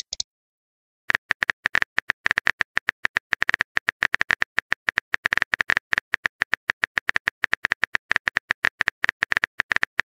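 Rapid phone-keyboard typing clicks from a texting-app animation, about ten taps a second, starting about a second in as a message is typed out letter by letter.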